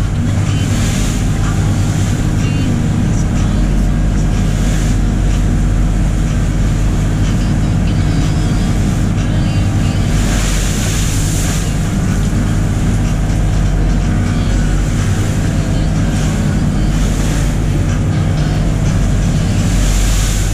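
Lobster boat's engine running steadily under way, with water rushing along the hull. Waves slap and spray over the side in louder washes about a second in, around ten seconds in and again near the end.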